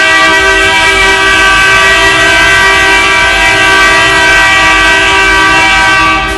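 Edmonton Oilers' hockey goal horn giving one long, steady blast of about six seconds, cutting off near the end and echoing briefly in the empty arena.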